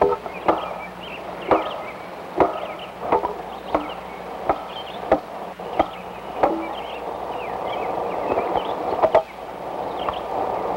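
Wood being chopped by hand: about ten sharp blows at irregular intervals of roughly half a second to a second, then a pause and two quick blows near the end. Birds chirp faintly throughout.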